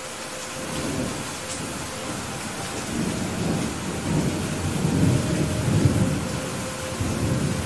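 Heavy rain falling in a steady hiss, with a long low roll of thunder that swells partway through, is loudest just past the middle, and dies away near the end.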